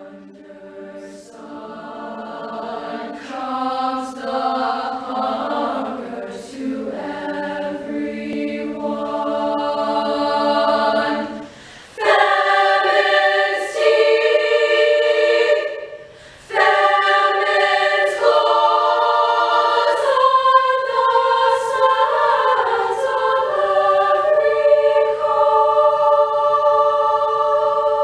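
School chorus singing in harmony with several held notes sounding together; the lower, quieter part of the first dozen seconds gives way to a louder, higher passage about halfway through, broken by two short pauses.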